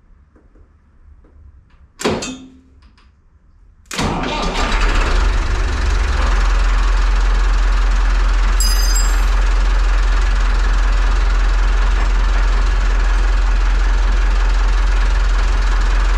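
Renault 70-34 tractor's Perkins diesel engine being started on the starter for the first time after a clutch replacement: a brief loud burst about two seconds in, then about four seconds in it cranks, fires and settles into steady running.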